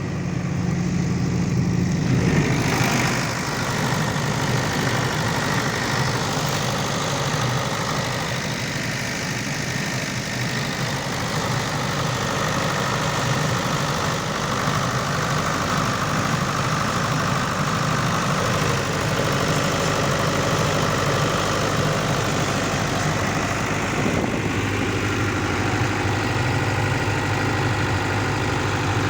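Mahindra generator's engine running steadily, with a louder rush of broad noise coming in about two seconds in.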